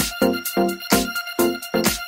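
Electronic background music with a steady beat and repeating chords.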